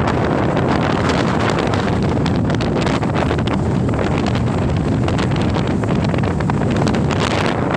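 Strong northeast monsoon (amihan) wind buffeting the phone's microphone: a loud, steady rush of wind noise.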